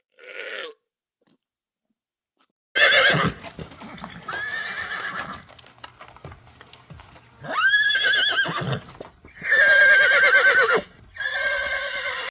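Horse neighing: a run of five whinnies with a wavering, shaking pitch, after a short call and about two seconds of silence.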